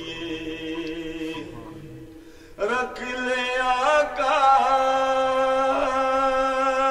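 A solo man's voice chanting Punjabi devotional verse (a naat) in long held notes. The first phrase fades out about a second and a half in. After a short pause a new phrase starts, sliding up into a long sustained note with small ornaments.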